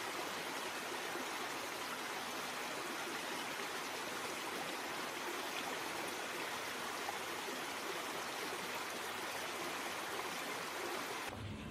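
Steady, even rush of running water, unbroken, cutting off abruptly near the end.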